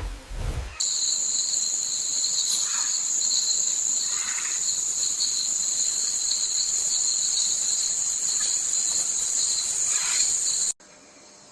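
Rainforest insect chorus: a steady, high-pitched shrill drone that stops abruptly near the end.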